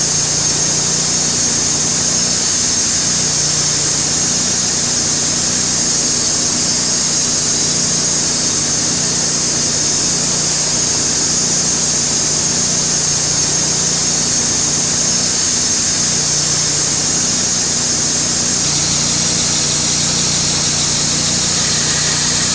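Sawmill engine running steadily under load while the blade cuts a 2-inch slab from an ash log, with a bright hiss from the cut over the engine hum. The engine tone shifts slightly near the end.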